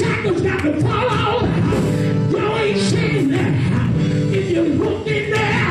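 Live gospel music: a man sings through a microphone over an amplified band with drums and cymbals, loud and unbroken.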